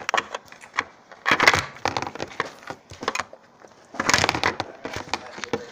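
Close crackling, clicking and rubbing right at the microphone, from something being handled or squeezed against it, with two louder crunchy stretches: one about a second and a half in, one about four seconds in.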